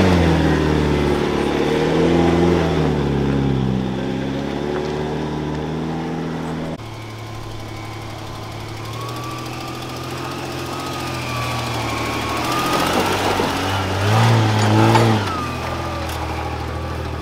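Four-wheel-drive engines revving under load on a steep, loose climb. First a Nissan Navara D40 engine rises and falls in revs. After an abrupt cut about seven seconds in, a Toyota LandCruiser 80 Series pulls steadily with a thin whine over it, its revs rising near the end.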